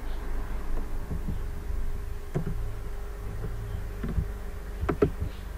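A low steady buzzing hum with a few sharp computer keyboard and mouse clicks: one about two seconds in, then three more toward the end, two of them close together.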